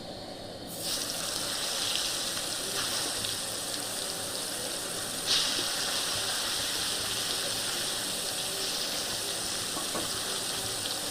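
Food sizzling in hot oil in a kadai, a steady frying hiss that starts suddenly about a second in and jumps louder about five seconds in, as more goes into the oil.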